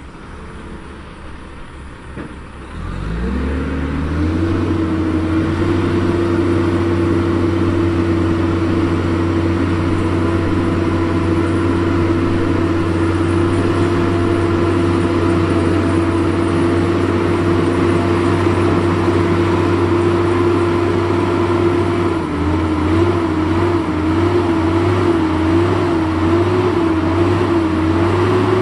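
Kenworth W900L log truck's diesel engine revving up about three seconds in, then holding steady revs under load. Near the end its pitch wavers up and down rhythmically.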